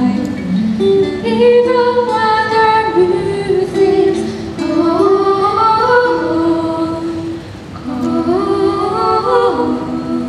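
Live pop song: girls' voices singing into microphones over an acoustic guitar, with sustained sung notes stepping from pitch to pitch.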